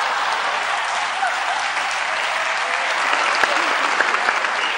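Large theatre audience applauding steadily.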